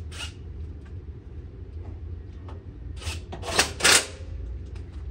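Cordless impact driver fired in a few short, loud bursts a little over three seconds in, the loudest two close together, tightening the bolts that hold a mower-deck gearbox.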